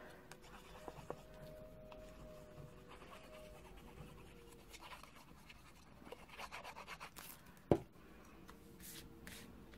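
Faint paper-crafting handling sounds: the tip of a Tombow liquid glue bottle rubbing along a strip of patterned paper, and soft rustling as the paper is handled. Near the end comes one sharp knock as the glue bottle is set down on the mat.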